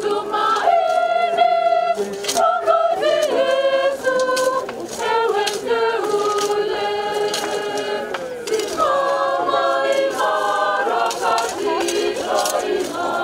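A group of voices singing a hymn-like song unaccompanied, holding long notes.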